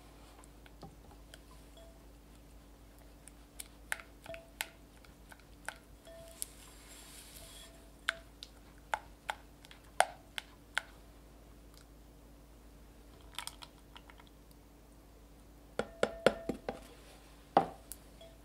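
Spatula stirring matcha paste and heavy cream in a glass bowl: scattered light clicks and taps of the spatula against the glass with soft wet stirring, and a quick run of taps near the end.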